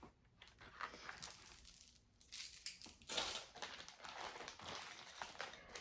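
Plastic bag crinkling as it is handled, in irregular bursts that are loudest about three seconds in.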